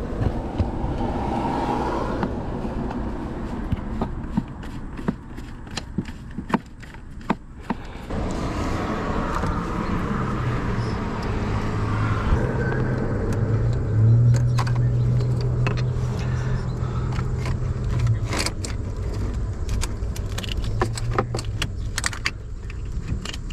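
Screwdriver and small metal parts clicking and rattling as a stubborn Phillips head screw is worked out of a car's steering column, over a steady low hum that grows louder around the middle.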